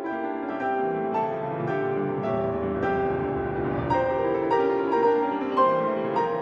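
Background piano music: a slow melody of single notes over held chords.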